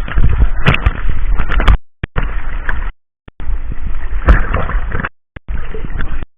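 Sea water sloshing and splashing close to the microphone, with heavy rumbling buffeting. The sound cuts out completely for short moments several times.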